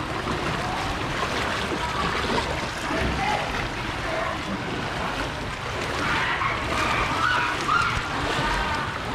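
Floodwater sloshing and splashing around legs wading through it on foot, with people's voices talking about two-thirds of the way in.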